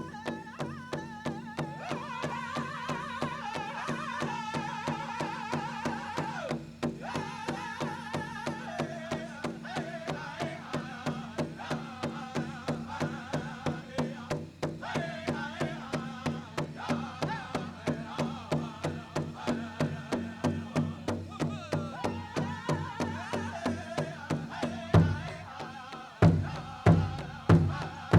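Powwow drum group singing a prairie chicken dance song, high voices over a steady big-drum beat of about three strikes a second. Near the end the drum breaks into several louder, more widely spaced strikes.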